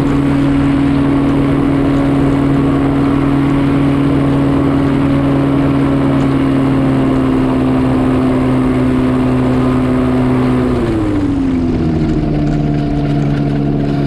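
Powered parachute's engine and pusher propeller running at a steady speed, then slowing about eleven seconds in, its pitch sliding down and settling lower.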